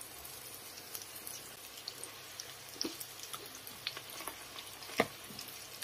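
Oil sizzling faintly under flatbreads frying in an electric griddle pan, with scattered small crackles and pops and a few sharper clicks, the loudest about five seconds in.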